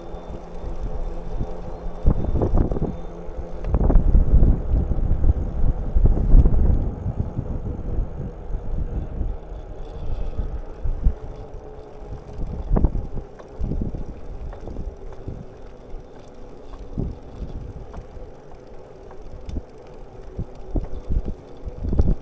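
Wind buffeting the microphone of a handlebar-mounted camera on a moving bicycle, over the rumble of tyres on a paved path. Occasional sharp clicks and rattles come from the bike. The wind gusts are strongest a few seconds in, then settle.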